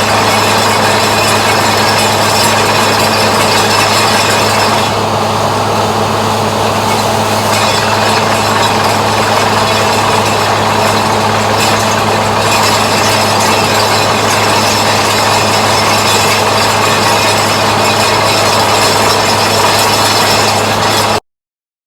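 Heavy boring machine at work, its engine and drilling gear making a loud, steady low hum under a dense mechanical din. The sound cuts off suddenly near the end.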